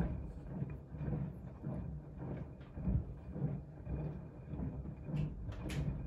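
Siemens front-loading washing machine in its wash cycle: the drum turning, with heavy work clothes and soapy water sloshing and thudding in a low, regular rhythm about twice a second.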